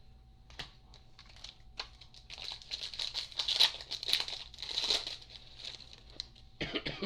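A card pack's wrapper being torn open and crinkled by hand: a few light clicks, then about three seconds of dense crinkling and tearing that tails off near the end.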